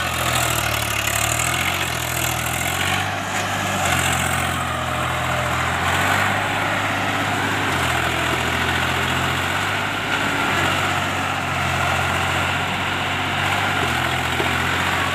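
Swaraj 744 FE tractor's three-cylinder diesel engine running steadily under load as the bogged-down tractor churns its rear wheels through deep mud, the engine note shifting slightly up and down every few seconds.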